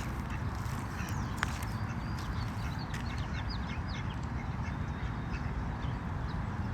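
Ducks quacking in short, scattered calls over a steady low rumble.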